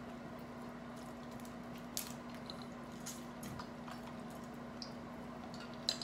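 Faint wet squishing and small crackles of hands peeling boiled shellfish and of eating, over a steady low hum.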